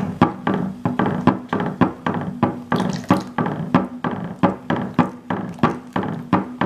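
Wire whisk beating cake batter in a glass bowl, its wires clicking against the glass in a quick, even rhythm of about four or five strokes a second.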